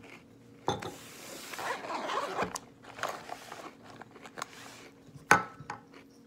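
Objects being handled at close range: a click, then a couple of seconds of rustling and crinkling, scattered light clicks, and one sharp knock about five seconds in.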